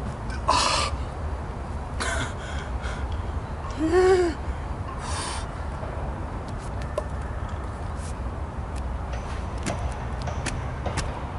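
A man's sharp huffing breaths, with one short pitched groan about four seconds in that rises and falls, over a steady low rumble. A few faint knocks come in the second half.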